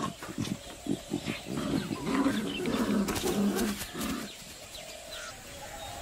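Bengal tigers growling for about four seconds, then falling quieter.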